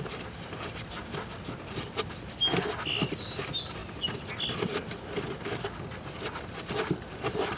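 A small bird chirping a quick run of short, high notes between about one and four seconds in, over faint clicking and rustling from gloved hands loosening the air filter's hand nut.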